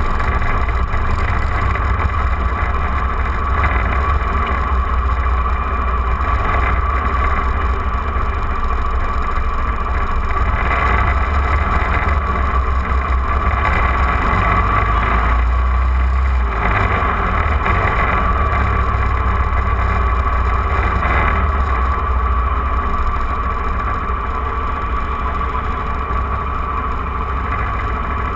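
Motorcycle engine running steadily at low speed, heard close up with a deep rumble, easing slightly near the end as the bike slows to a stop in traffic.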